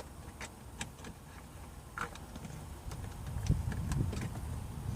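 Scattered light clicks and scrapes of a plastic pry tool working at a stubborn retaining tab on a BMW E46 interior trim piece, with low handling bumps from about three seconds in.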